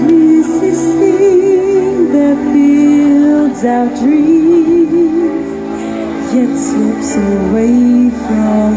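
A woman singing live into a handheld microphone over amplified music, the sung melody wavering with vibrato on held notes, heard through the stage sound system.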